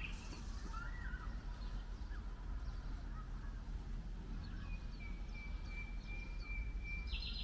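Outdoor ambience: birds chirping here and there over a steady low rumble, with one long steady whistled note in the second half.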